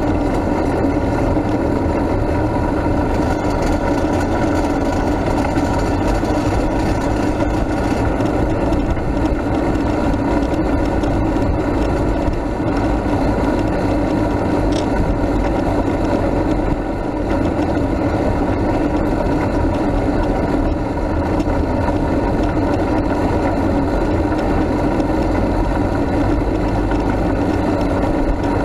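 Steady low-speed engine and rolling noise of a Nissan Frontier flat-towing a Max II 6x6 amphibious ATV, heard from the towed 6x6.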